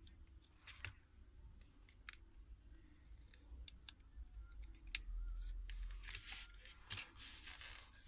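Scattered light clicks and taps of small tools and parts being handled during a smartphone's reassembly, with a longer scraping rustle near the end.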